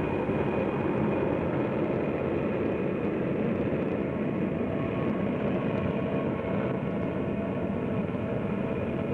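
The XB-70A Valkyrie's six General Electric YJ93 turbojets running as the aircraft taxis past: a steady rushing noise with a thin, high whine on top.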